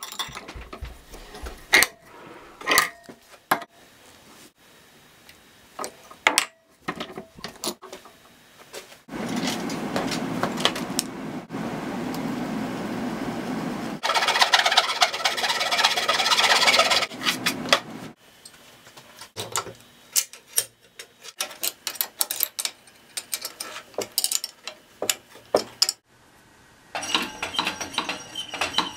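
Hand-tool work on metal saw parts: scattered sharp metal knocks and clicks, with a steady scraping, grinding noise lasting about eight seconds from about a third of the way in. Another short stretch of scraping comes near the end.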